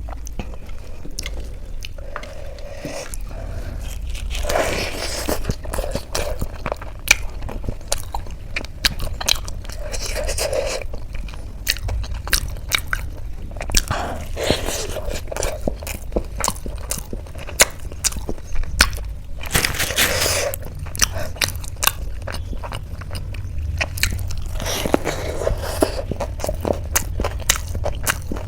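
Close-up chewing and crunching of crisp street snacks, many sharp crunches in quick succession, broken by a few longer rushes of noise about every five seconds.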